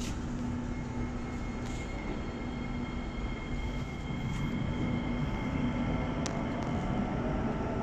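North South Line MRT train running through a tunnel, heard on board: a steady rumble with a steady motor whine, and a click or two.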